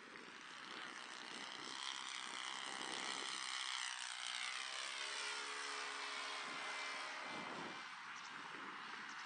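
Laser 70 four-stroke glow engine of a 60-inch radio-controlled Fw 190 model in a low fly-by. The engine note grows louder up to about four seconds in, then drops in pitch as the plane passes and goes on more steadily at the lower pitch.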